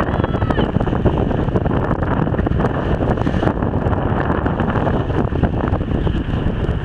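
Strong wind buffeting the microphone in a steady rush, over the noise of a rough sea.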